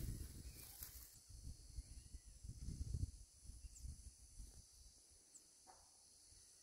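Faint outdoor ambience: an irregular low rumble with a steady, thin high buzz of insects above it.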